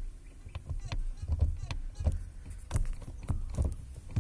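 A string of light, irregular clicks and knocks, a few each second, over a low rumble.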